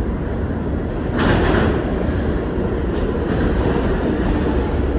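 A New York City subway C train pulling into an underground station. Its steady low rumble grows suddenly louder about a second in as the front of the train reaches the platform, with a few brief rattles of the wheels on the rails after that.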